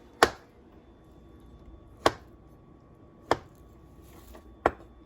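Kitchen knife chopping through avocado onto a cutting board: four sharp, separate knocks, unevenly spaced a second or more apart.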